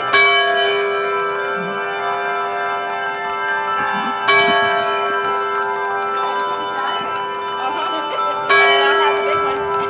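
Large church bell ringing, struck three times about four seconds apart, each stroke ringing on into the next.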